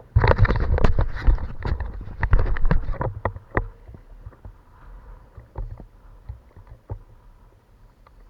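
Handling noise on a fishing kayak: a sudden burst of knocks and rustling for about three seconds, then scattered single knocks over a low rumble.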